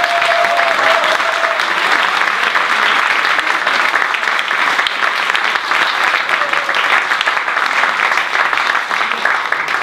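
Audience applauding steadily after an a cappella song.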